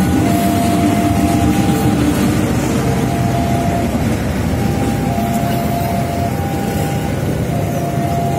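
A diesel locomotive and its passenger coaches running past over a level crossing: a steady rumble of engine and wheels on rails. Through it, the crossing's warning signal repeats an alternating two-note electronic tone, each note about a second long.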